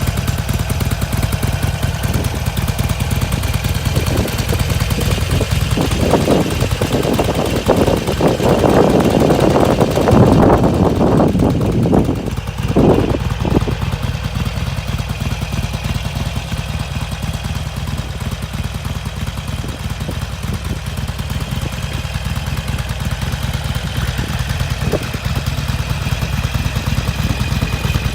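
Harley-Davidson Iron 883's air-cooled V-twin running through its stock exhaust, mostly at a steady idle. It gets louder and busier for several seconds around the middle, then settles back to a steady idle.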